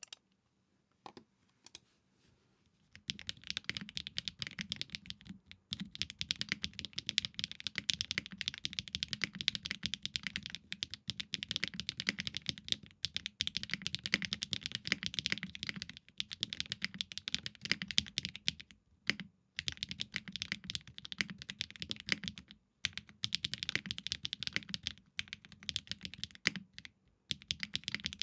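Fast typing on a Space65 R3 mechanical keyboard with stock HMX Cloud linear switches, a polycarbonate plate with plate foam, and GMK keycaps: a dense run of keystrokes with a few brief pauses. Only a couple of single key presses come in the first few seconds before the steady typing starts.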